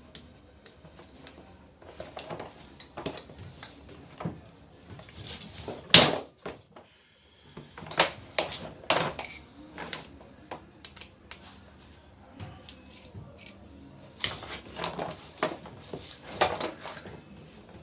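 Metal tools and pump parts clinking and knocking in a run of separate clicks as a pressure-washer pump is taken apart, with one sharp knock about six seconds in.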